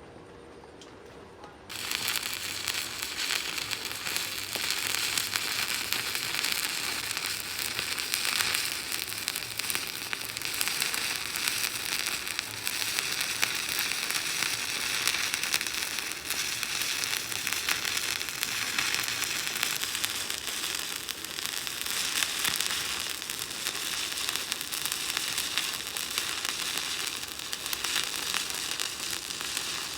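Stick-welding arc crackling and sizzling steadily, struck suddenly about two seconds in and then burning without a break.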